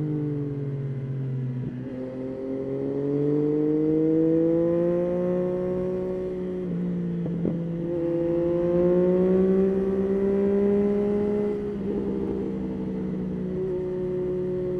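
Yamaha Tracer 9's inline-three engine under way, its pitch climbing steadily under throttle, then falling away briefly about two, seven and twelve seconds in before picking up again.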